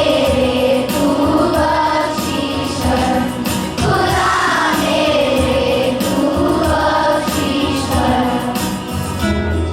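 A group of voices singing a song with instrumental backing and a steady beat.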